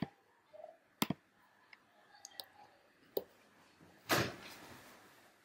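Computer mouse clicks: several single sharp clicks spaced irregularly over about three seconds. About four seconds in there is a short rush of noise that fades over a second.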